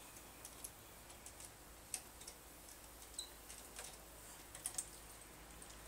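Faint, irregular light clicks of a motorcycle bar end being screwed and tightened into the handlebar end, with a sharper click about two seconds in and a quick double click near the end.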